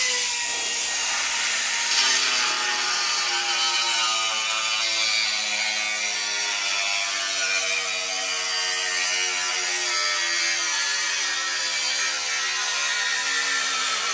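Handheld pneumatic metal-cutting tool running steadily as it cuts through a diamond plate sheet, its pitch sinking slowly as it works.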